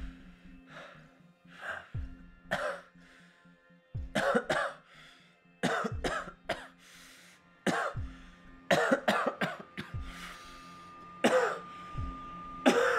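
A man coughing and choking, a dozen or so short coughs in irregular clusters, over a quiet, sustained music score that adds a held high tone near the end.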